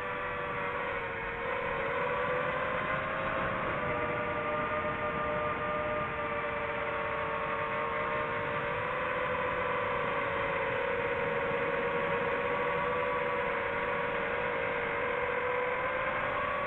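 DJI FPV quadcopter's motors and propellers humming steadily, two tones drifting slightly up and down in pitch as the throttle shifts.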